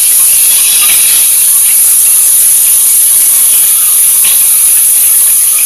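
Steady, loud, high-pitched hiss of rushing water.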